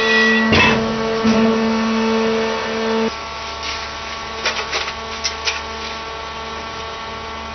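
Mobile scrap baling press and its hydraulic loader crane running with a steady machine hum. About three seconds in, the hum drops lower and quieter, and a few short metallic clatters of light scrap follow near the middle.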